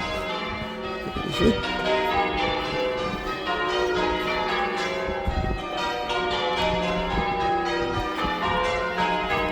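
Chichester Cathedral's church bells being rung in changes: a continuous run of bell strokes, one after another, each ringing into the next.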